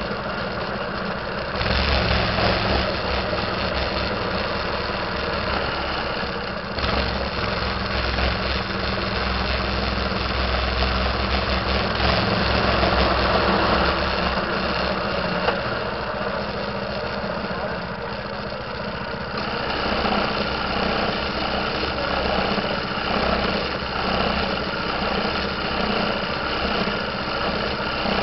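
A minibike's small engine running as it is ridden, its note shifting with the throttle, then settling into a slower, evenly pulsing run in the last several seconds.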